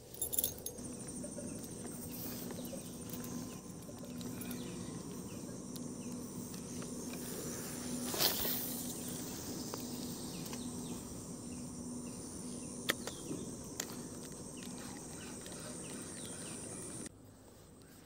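Insects droning steadily at a high pitch, with rustling and a few knocks close by, as of someone moving through undergrowth. The insect drone cuts off suddenly near the end.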